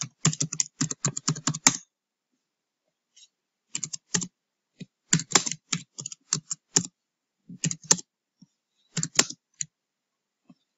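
Typing on a computer keyboard: quick runs of keystrokes in several bursts, with pauses of a second or two between them.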